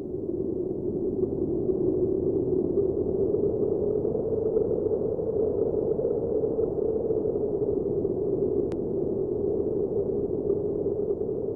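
Steady low synthesized drone, a dull humming noise sound effect that swells up during the first second and then holds even.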